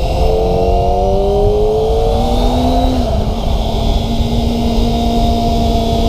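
Kawasaki ZX-25RR's 250 cc inline-four engine under way, its pitch rising for the first three seconds as it pulls, then holding a steady note. Heavy low wind rush runs underneath.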